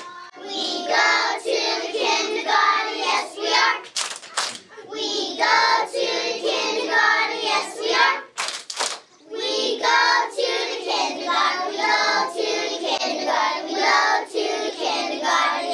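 A group of young children singing a song together in long phrases. There are two short breaks, about 4 and 8.5 seconds in, where a few sharp claps are heard.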